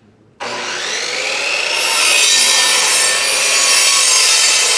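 Electric miter saw starting suddenly about half a second in, its motor whine rising in pitch as it spins up. From about two seconds in the blade cuts through a wooden board, louder and noisier.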